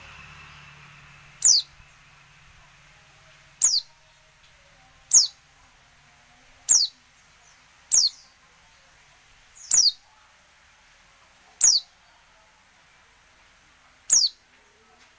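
Female white-eye (pleci) calling: eight single short, high notes that each sweep quickly downward, spaced a second and a half to two and a half seconds apart. This is the female call used to draw a silent male white-eye into song.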